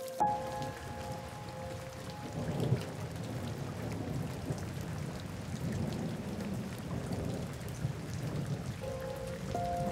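Steady rain, with a low rumble of distant thunder swelling and fading under it.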